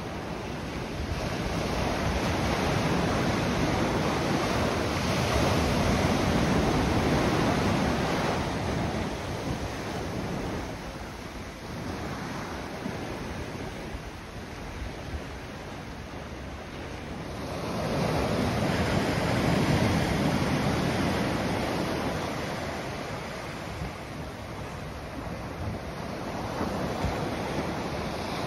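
Ocean surf from large waves at high tide breaking and washing up the shore. It comes in as a continuous rushing that swells twice into long surges, once in the first third and again about two-thirds through.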